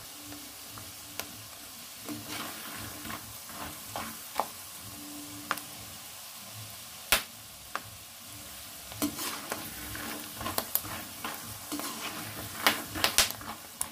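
Besan-coated peanuts deep-frying in hot oil in a wok: a steady sizzle, with sharp crackles and pops that come thicker over the last few seconds, and a spatula stirring through them. The crackling is the sign that the peanuts are turning crisp.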